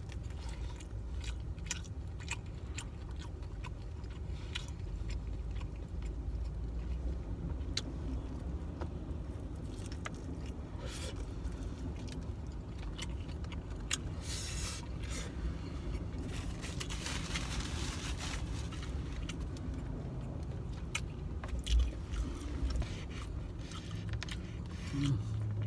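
A person chewing and biting into tender camel meat with rice, with scattered clicks and scrapes, over a steady low rumble.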